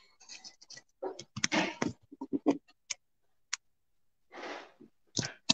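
Handling noise from a hands-free earphone set's microphone as it is fitted at the ear: irregular clicks, scrapes and rubbing right on the mic.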